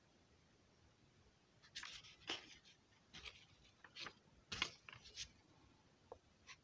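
Paper pages of a hand-drawn picture book rustling and crinkling as a page is turned: a run of short, soft crackles over about three seconds, starting about two seconds in.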